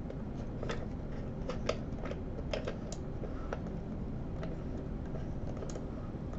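Light, irregular clicks and taps of small microscope parts being handled and worked at, where an internal part has got stuck. There are about ten scattered clicks over steady low background noise.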